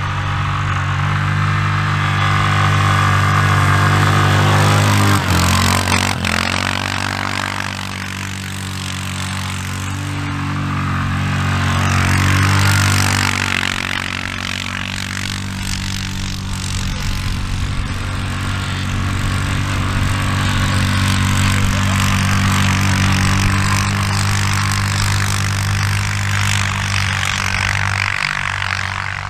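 Four-wheeler (ATV) engine running and changing pitch as it tows an inner tube across snow, growing louder as it comes close about four seconds in and again around twelve seconds. A rushing hiss rises as the tube skids over the snow close by.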